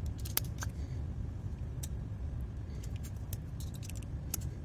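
Light metallic clicks and taps as the steel double-ended bits and hex nut-driver shafts of a Klein 11-in-1 screwdriver are pulled apart and handled, scattered irregularly over a steady low rumble.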